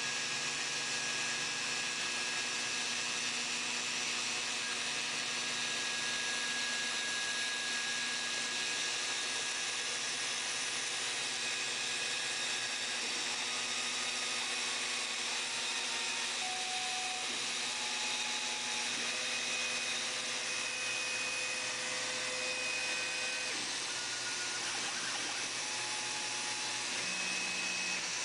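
A RotoZip-style rotary cutting tool running at high speed as the spindle of a CNC router, cutting a board with a steady whine. The axis drive motors add short whining tones that jump to a new pitch every second or so as the head changes direction.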